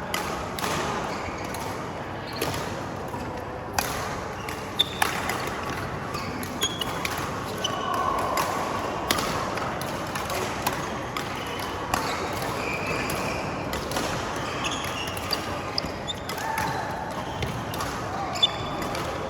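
Badminton play: sharp, irregularly spaced strikes of rackets on a shuttlecock, with voices in the background.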